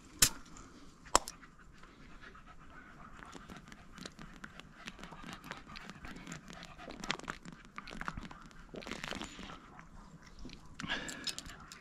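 A German hunting terrier (jagdterrier) panting close by, fairly quiet, with two sharp clicks near the start and scattered small ticks and rustles.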